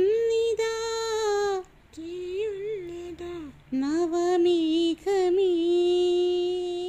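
A boy singing a Malayalam song unaccompanied, in a few drawn-out phrases with short breaks between them, the last note held steady for a long time.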